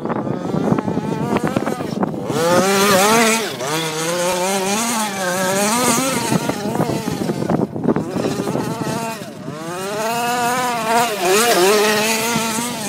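Two-stroke petrol engine of a 1/5-scale MCD RR V4 RC buggy on its first tank of fuel, revving hard and easing off again and again as it is driven, its pitch rising and falling. The throttle drops off briefly about two seconds in and again near eight seconds.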